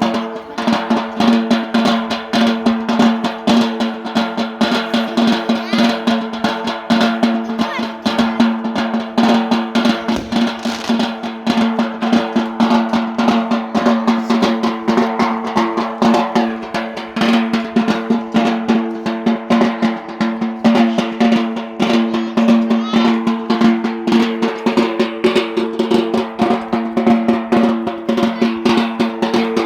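Yemeni bara' dance drumming: fast, dense drum strokes in a continuous rolling rhythm, with a steady droning tone held underneath.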